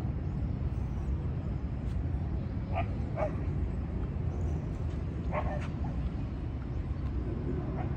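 A dog barking in two quick pairs, about three and five and a half seconds in, over a steady low background rumble.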